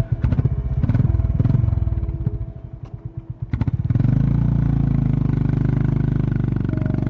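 Honda CB350RS's air-cooled single-cylinder engine pulling away: separate thumps at first, a rev about a second in, a brief easing off with the thumps showing again, then a steady, stronger run from about four seconds in as the bike rides on under throttle.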